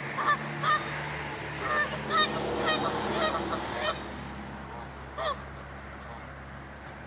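Geese honking: two single honks, then a run of overlapping honks for about two seconds, and one last honk about five seconds in, over a steady low hum.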